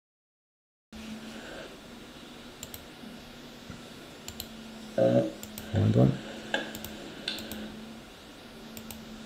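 Scattered computer keyboard clicks over a steady low electrical hum, with two short vocal sounds from a man about halfway through. The sound cuts in after a second of total silence.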